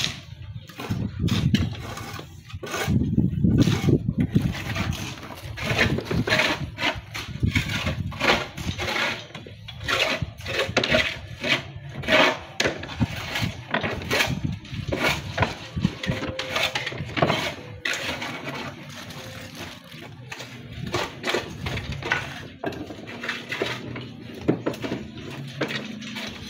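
Cut natural stone cladding strips knocking and clinking together as they are picked up, sorted and set down on a wooden scaffold plank, an irregular run of sharp knocks.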